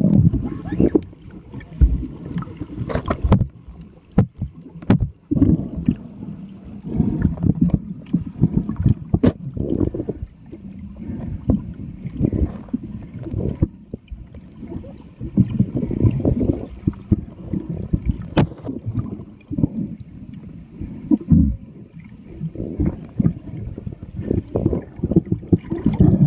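Muffled underwater sound picked up by a submerged camera: an uneven low rumble of moving water, with scattered sharp clicks and knocks.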